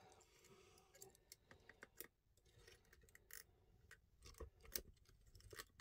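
Faint, irregular metallic clicks and ticks of lock-pick wires on a lollipop pick handle being handled and worked into the keyhole of a lever mortice deadlock.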